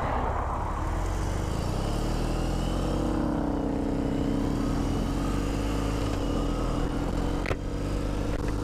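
BMW R18 First Edition motorcycle's 1.8-litre boxer twin running while the bike is ridden along a road. The engine note rises about three seconds in and then holds steady. There is a brief knock near the end.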